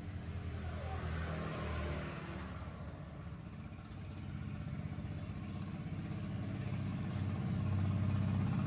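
An engine running with a low, steady hum that grows louder over the last few seconds.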